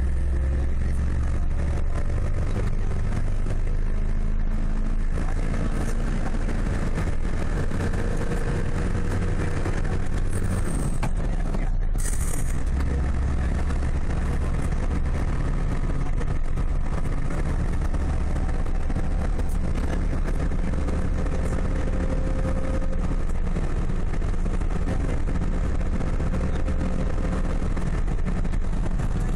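Steady car engine and tyre rumble heard from inside the cabin while driving at a constant speed.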